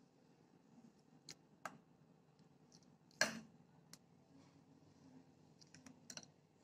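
A metal spoon clicking and tapping against a glass bowl while freshly churned butter is gathered and pressed. There are scattered light clicks, one louder knock about three seconds in, and a quick run of clicks near the end.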